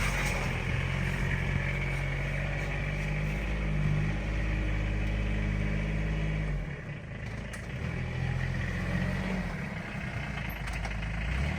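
Truck engine running steadily at low revs, its note shifting and dipping briefly about seven seconds in.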